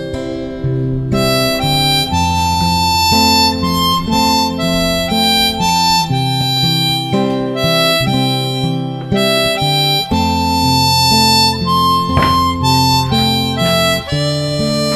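Background music: a harmonica melody over acoustic guitar and a bass line.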